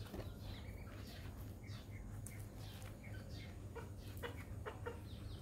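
Foraging chickens of red junglefowl type clucking and giving short calls. A quicker run of clucks comes near the end.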